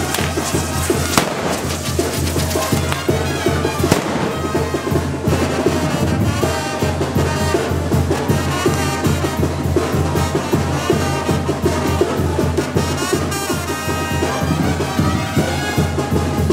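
Castillo fireworks tower going off: dense, rapid crackling and popping, with a few sharper bangs in the first four seconds, over loud band music.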